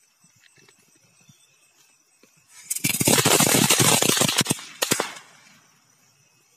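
A chatar patar crackling firecracker going off: a loud, dense rush of rapid sharp crackles starting about two and a half seconds in and lasting about two seconds, with a few last pops just before five seconds.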